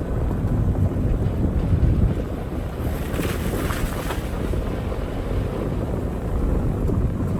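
Wind buffeting the microphone as a steady low rumble, with a brief rush of hiss about three seconds in.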